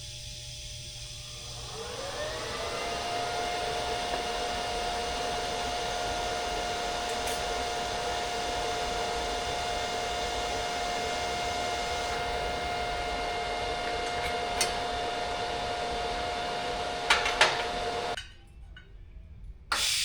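A small electric motor, such as a power tool, spins up with a rising whine and then runs at one steady pitch, with a couple of sharp clicks before it cuts off.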